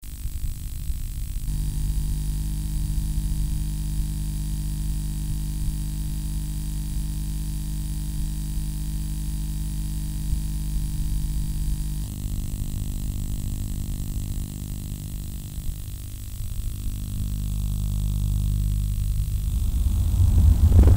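Steady electrical hum and hiss, a buzz of many fixed overtones, that changes character about a second and a half in and again about twelve seconds in. Near the end a rising rush of sound begins.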